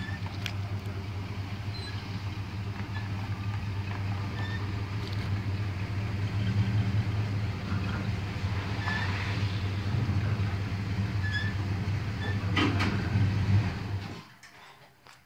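1977 GMC pickup's engine running at a steady idle, then switched off and cutting out suddenly near the end.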